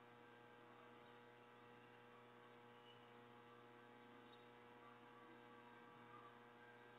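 Near silence: a faint steady electrical hum from the air traffic control radio feed between transmissions.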